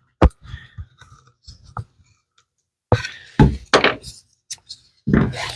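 A few sharp knocks and clicks with some clatter between them: small wooden workpieces being handled and tapped together. The loudest knock comes right at the start, and a quicker run of knocks follows about three seconds in.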